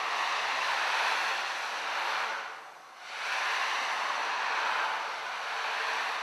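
A rushing noise that swells and fades, dropping away briefly about two and a half seconds in before building again.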